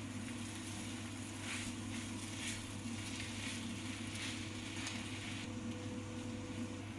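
Food sizzling on a hot flat griddle, the hiss swelling now and then, over a steady low hum.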